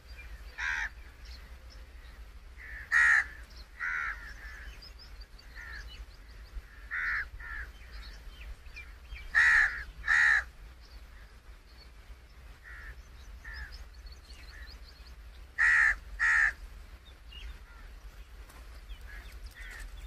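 A bird giving short, harsh calls several times, the loudest in pairs about half a second apart, with quieter calls in between. A steady low rumble runs underneath.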